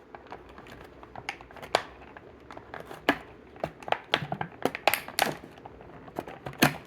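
Plastic toy-car packaging being handled and pried at: irregular crinkles and sharp plastic clicks, busiest from about three to five seconds in, as die-cast cars are worked loose from it.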